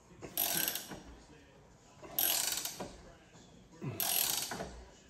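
Ratcheting box-end wrench clicking in three short runs, about every two seconds, as it is swung back and forth turning a nut on the front wheel carrier.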